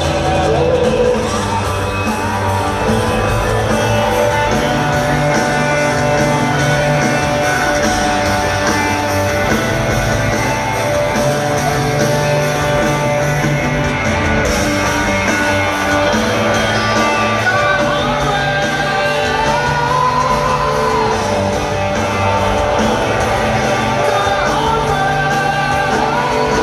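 Rock band playing live, with a male lead vocal singing long, gliding notes over electric guitars and bass, loud and steady throughout.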